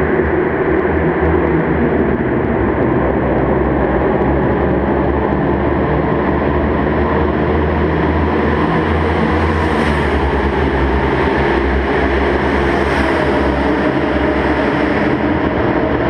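Sport motorcycle cruising at a steady speed through a road tunnel, heard from a camera mounted on the bike: a steady engine drone with road and wind noise. The higher hiss swells twice in the second half.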